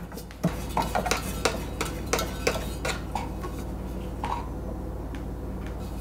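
Light metallic clicks and scrapes of a 1 lb propane canister being threaded into the gas regulator of a portable propane water heater. They come quick and irregular at first, then thin out to a few ticks.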